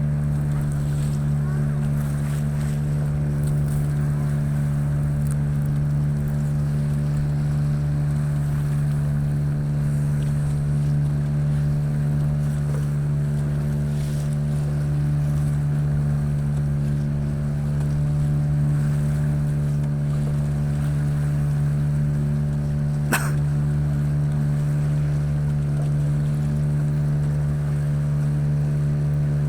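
Boat engine running steadily at a constant speed, with one short sharp knock about three-quarters of the way through.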